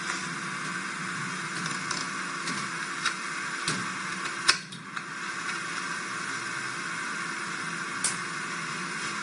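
Steady hiss with a few sharp clicks scattered through it, the loudest about four and a half seconds in.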